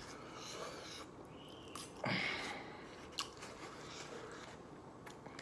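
Close-up chewing and mouth sounds of someone eating a wet burrito, with a few sharp clicks of a fork and knife against a foam takeout container and one louder, short sound about two seconds in.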